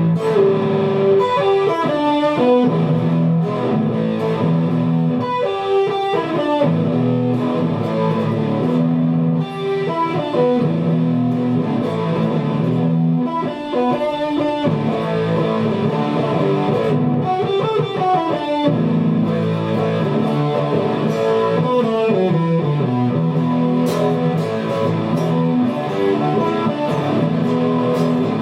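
Guitar music: sustained notes over a steady low line, broken every few seconds by a quick falling run of notes.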